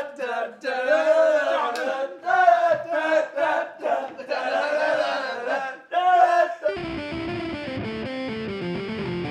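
A group of people shouting and cheering with long held yells. About seven seconds in, the voices stop and music with plucked guitar notes starts.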